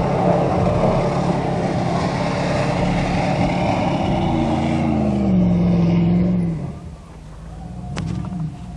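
Pickup truck engine running hard through mud. Its pitch slides down about five to six and a half seconds in, then the sound drops off sharply, leaving a fainter engine running.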